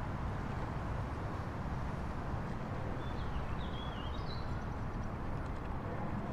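Steady low outdoor rumble. A short, warbling bird call about three seconds in.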